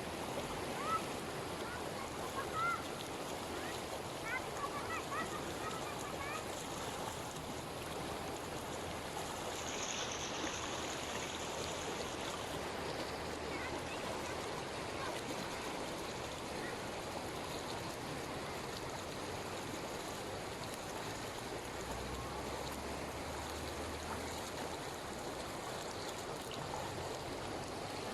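Steady rushing of flowing floodwater. In the first several seconds there are a few short, high rising squeaks.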